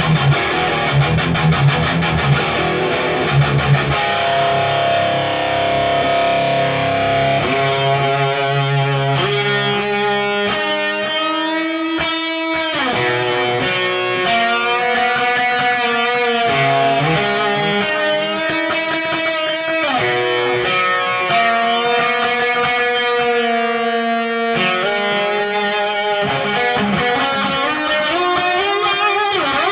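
Heavily distorted electric guitar, an Ibanez RGA42FM with a Seymour Duncan Omega bridge humbucker, played through a cranked Randall RD20 Diavlo high-gain tube amp designed by Mike Fortin. It opens with a chugging low riff for about four seconds, then moves to held chords and lead notes with wide vibrato and bends.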